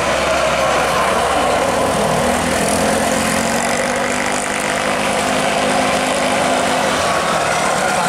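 Isuzu Elf microbus diesel engine driving past up a hill bend and pulling away, mixed with passing motorcycle engines; a steady low drone from the engines runs through the middle.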